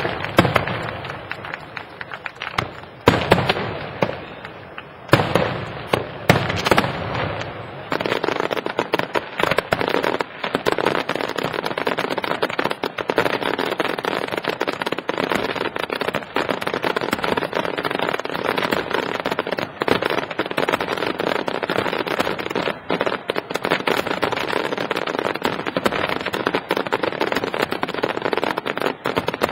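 Aerial fireworks display: a few separate shell bursts, each a loud bang with a fading tail, in the first several seconds. From about eight seconds in, these give way to a dense, continuous run of rapid bangs and crackling.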